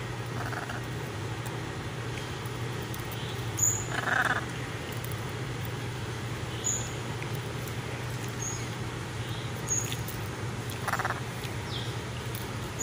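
Blue-and-yellow macaws giving short, raspy croaks, the loudest about four seconds in and another near eleven seconds, with brief high chirps scattered between, over a steady low hum.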